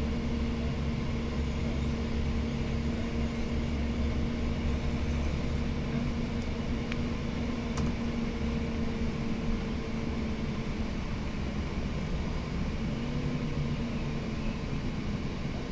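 Cummins ISL inline-six diesel of a 2008 Gillig Phantom transit bus running under way, heard from inside the bus as a steady drone with road noise. The drone eases off about two-thirds of the way through.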